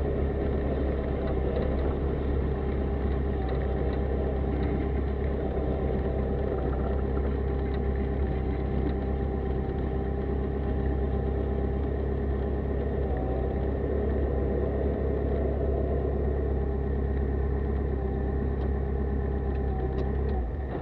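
Jabiru light-sport aircraft engine and propeller idling steadily while taxiing, heard from inside the cockpit. Right at the end the engine is shut off and the sound drops away suddenly.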